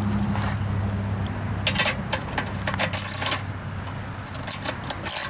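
Metallic clinks and scraping from a wrench working a 10 mm nut on the throttle linkage of a Harbor Freight Predator 212cc engine, busiest about two to three seconds in, over a steady low hum.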